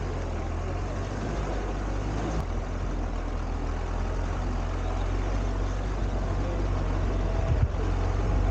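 Jeep engine running steadily.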